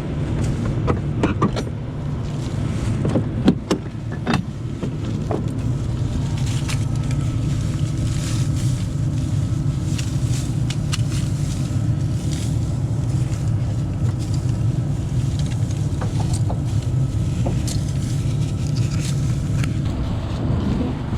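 A vehicle engine running steadily, with several sharp clicks and knocks in the first few seconds.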